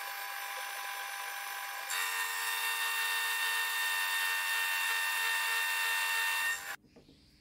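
Milling machine spindle running with a dovetail cutter taking a cut in a metal block: a steady whine with a hiss of cutting, which gets louder about two seconds in and stops abruptly near the end.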